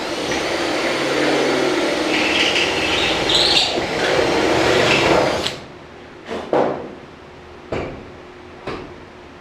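Cordless drill boring a hole through the steel hood of a 1978 Chevy C10 for about five and a half seconds, then stopping. A few short knocks follow.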